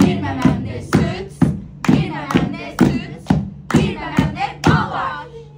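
A sing-song chanting voice over sharp, evenly spaced beats about twice a second, which stop near the end.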